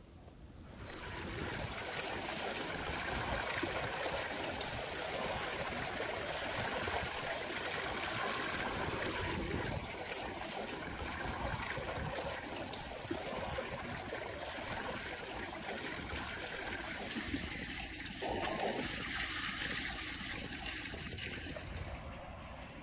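Running water pouring and splashing over raw ribs as they are rinsed by hand under an outdoor stone water outlet. It is steady throughout and stops near the end.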